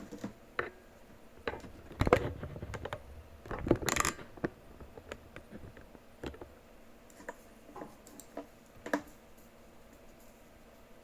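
Scattered clicks, taps and small metallic knocks of tools and parts being handled on a workbench, loudest in two clusters about two and four seconds in, then thinning to occasional light ticks.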